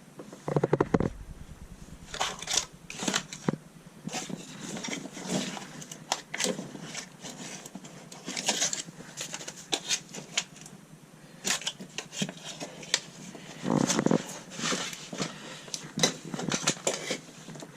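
Bitumen sound-deadening mat being handled and worked into place, with irregular rustles, crackles and taps, some clusters louder than others.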